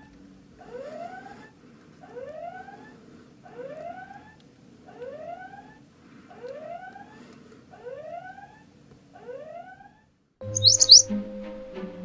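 Smart bird feeder's squirrel-deterrent siren sounding a rising whoop about once a second, stopping about nine seconds in. Near the end, louder music with short high bird chirps takes over.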